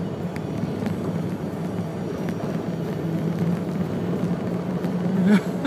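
Truck driving slowly on the road: steady engine and road noise with wind.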